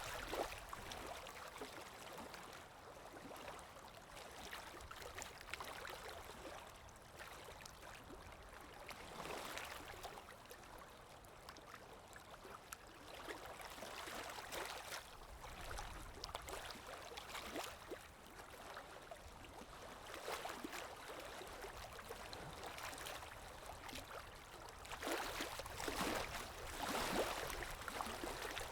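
Canaries bathing: small irregular splashes and flutters of wet wings in the water, coming in bouts, with the busiest and loudest splashing near the end.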